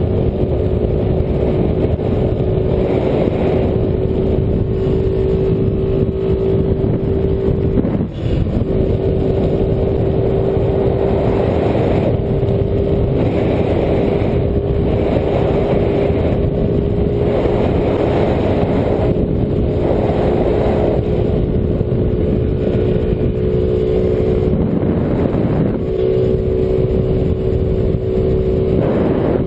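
Motor scooter engine running at a steady cruising speed, a constant hum, with wind rushing over the microphone; the sound dips briefly about eight seconds in.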